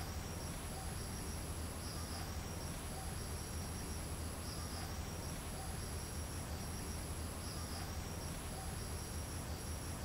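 Insects trilling: a thin, very high, steady cricket-like trill that breaks off briefly a few times, with fainter pulsing chirps beneath it.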